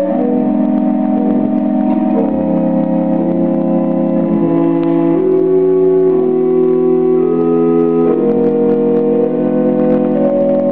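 Pipe organ improvising: slow, sustained chords in the middle register, with held notes overlapping as the harmony changes every second or two.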